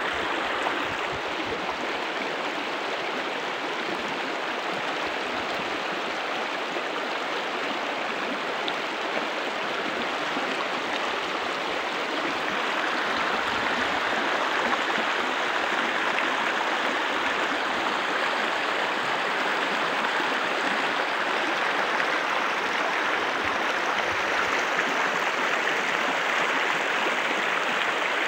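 Shallow, fast river running over a stony bed: a steady rush of water that grows a little louder about halfway through.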